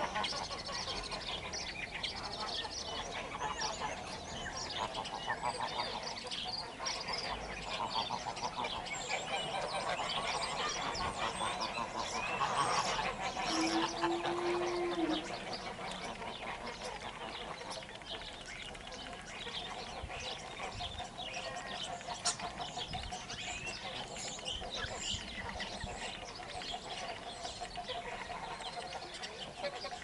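A flock of grey domestic geese honking and gabbling, many short overlapping calls without a break. The calling is busiest and loudest a little before the middle, then eases off somewhat.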